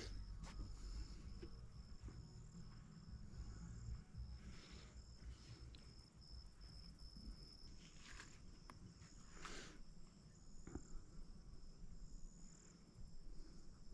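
Faint insect chirping: a high, even run of rapid pulses that keeps on steadily, with a few brief faint rustles.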